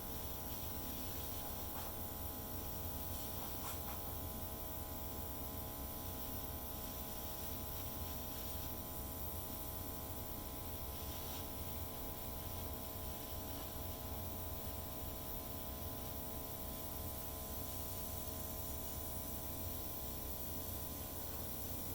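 Small airbrush compressor running steadily, a continuous electric motor hum with a faint hiss of air.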